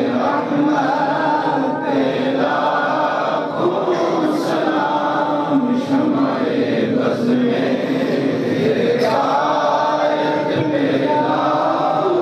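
A boy chanting a Salaam, a devotional poem in praise of the Prophet, in a held, melodic recitation into a microphone with no instruments, other voices sounding along with him like a chorus.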